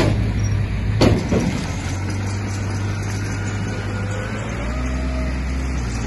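Heavy diesel earthmoving machine running steadily, with two sharp metallic knocks, one right at the start and one about a second in, and a faint wavering whine in the middle.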